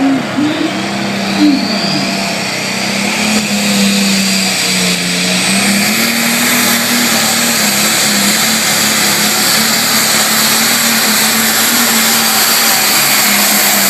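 Super Farm class pulling tractor's turbocharged diesel engine running loud and steady at full power during a pull. It builds a little over the first few seconds, then holds an even, dense din with a low steady hum underneath.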